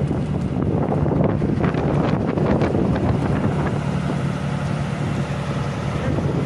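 A vehicle engine running steadily, with wind noise on the microphone.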